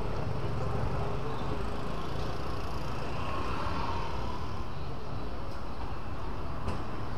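Steady street noise: a low traffic rumble with no single event standing out.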